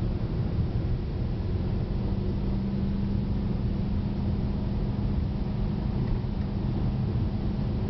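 Inside a Subaru WRX driving at speed: steady road and tyre noise with the hum of its turbocharged flat-four engine. A steady engine drone comes in about a second and a half in.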